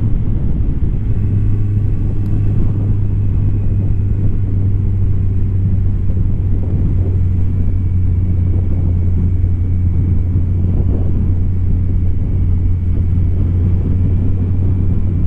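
Motorcycle engine running at a steady cruising speed, an even low drone with no change in revs, under a haze of wind and road noise.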